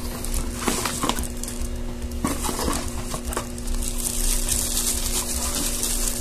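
Plastic bag wrapping crinkling and rustling, with cardboard scuffs and a few small clicks and knocks, as a boxed computer speaker is pulled out and handled.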